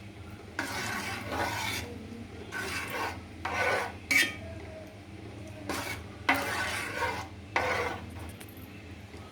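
A spoon stirring jackfruit payasam in a cooking pot, scraping the pot in a series of rasping strokes about half a second to a second long.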